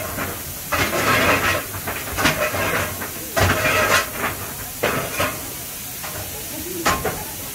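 1927 SACM 040 T steam tank locomotive standing still, with steam hissing in irregular gusts over a steady hiss. Its fire has just been coaled and steam is being raised.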